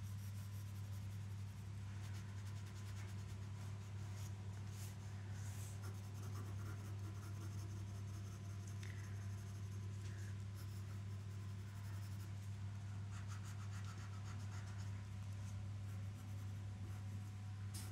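Graphite pencil drawing on paper: intermittent short scratching strokes, over a steady low hum.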